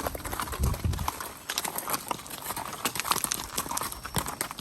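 Arabian horses' hooves clip-clopping on a trail, a steady run of irregular hoof strikes.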